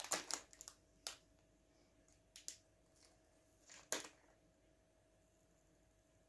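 A few brief crinkles and ticks of a plastic snack wrapper being handled: a quick cluster in the first second, then single ones about a second, two and a half and four seconds in, with near silence in between.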